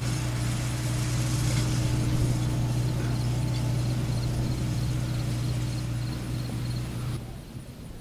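Farm tractor engine running steadily under load while pulling a wheel hay rake, a low even hum. The sound drops away sharply about seven seconds in.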